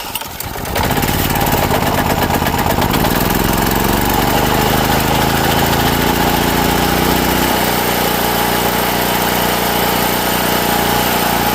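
Portable gasoline generator starting in freezing weather: the engine catches about a second in and runs steadily, its note changing and settling about seven and a half seconds in.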